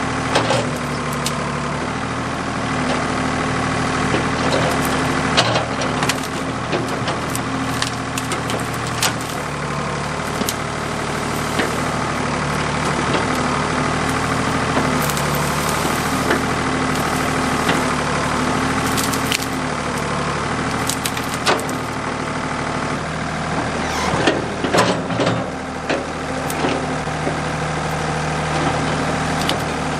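Backhoe diesel engine running steadily while wood cracks and snaps again and again as logs and brush are handled. The cracks cluster more thickly near the end.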